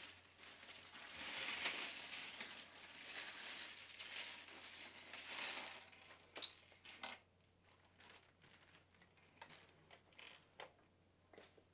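A bag of plastic Lego pieces rattling and rustling as it is rummaged through for about six seconds, then scattered sharp clicks of the plastic bricks being handled on the desk.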